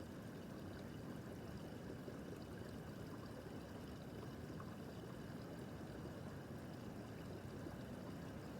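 Small brook babbling steadily, water running over stones.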